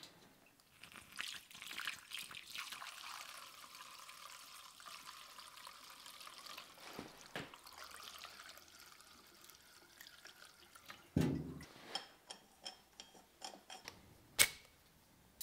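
Flammable liquid poured from a metal can through a plastic funnel into a small pressure canister, the pour rising slowly in pitch as the canister fills. Then a few clicks and knocks of handling, with one sharp click near the end.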